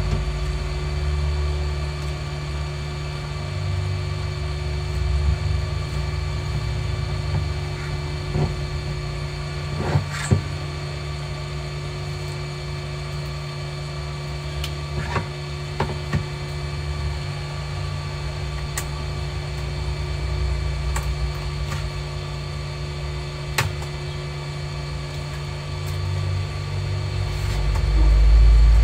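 A steady machine hum runs throughout, with a few light clicks and taps as the laptop's display panel is handled and pried apart. A deeper rumble swells near the end.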